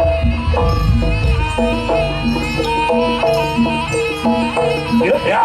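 Javanese jaranan music: an ensemble of tuned metal percussion plays a repeating melody in a steady rhythm over drums, and a sliding, wavering melodic line comes in near the end.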